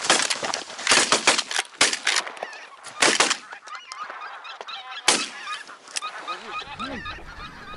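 Flock of wild geese honking, many overlapping calls, with loud bursts of calling about a second and about three seconds in and another near five seconds.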